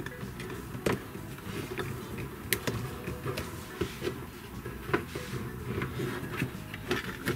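Scattered small plastic clicks and taps as a jointed doll's arms and hands are handled and pressed onto a plastic toy motorcycle's handlebars, a few sharp clicks spread over several seconds.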